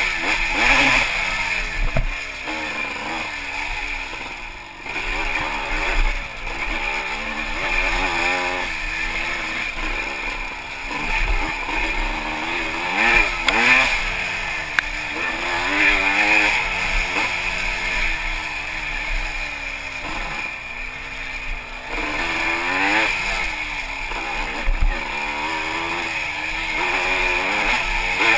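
Yamaha IT200 two-stroke dirt bike engine being ridden hard, its pitch rising and falling again and again with the throttle and gear changes.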